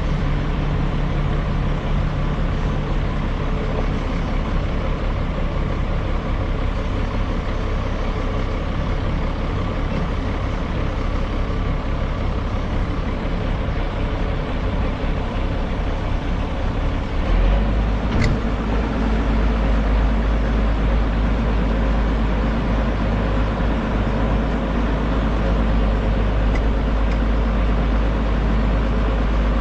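Tractor engine running steadily. About 17 seconds in its low note gets louder and deeper, as if it takes on load or changes speed, with a single short knock just after.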